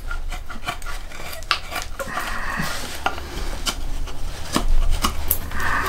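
Sloyd knife carving the end of an oak axe handle: irregular clicks and short scraping cuts of the blade on the hard wood, with longer scrapes about two seconds in and near the end. The wood is being pared down to fit the eye of the axe head.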